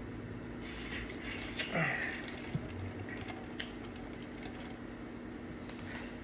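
Eating and handling fast food: chewing with scattered light clicks and rustles, over a steady low hum.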